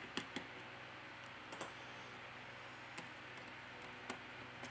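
A few faint, sharp clicks at irregular intervals as a small precision screwdriver works the screws out of a smartphone's metal motherboard bracket.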